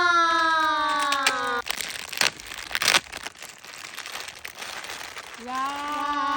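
A high singing voice holds a long, slowly falling note that breaks off about a second and a half in. Then comes a few seconds of crinkling and crunching with sharp clicks, like a plastic wrapper being handled, loudest about three seconds in. The singing returns near the end.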